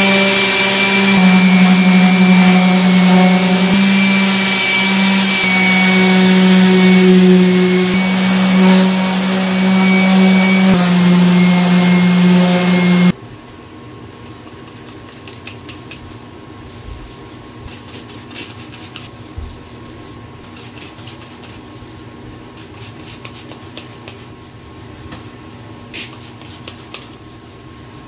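A random orbital sander runs steadily on the face of an end-grain hardwood cutting board, with a steady motor hum and a slight shift in pitch as it is pushed. About thirteen seconds in it cuts off abruptly. After that there is only quiet handling: hands rubbing over the board and faint light knocks of wood.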